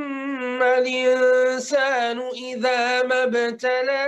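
A man reciting the Quran in slow, melodic tajweed style, drawing out the vowels on long held notes with small ornamental turns in pitch.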